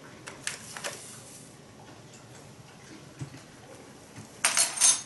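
Light clicks and scrapes of a small measuring spoon as dry yeast is spooned into a bread-machine pan, then a short, louder rustling scrape near the end.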